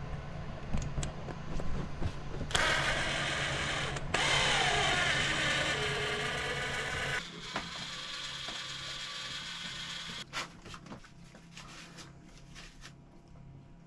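Cordless drill boring slowly into the centre of a snapped steel bolt on a diesel engine, drilling a pilot hole for a screw extractor. The drill runs in a sustained stretch of about five seconds with a brief stop partway through, its pitch sinking as the bit bites. Then it stops, leaving a few light clicks and handling sounds.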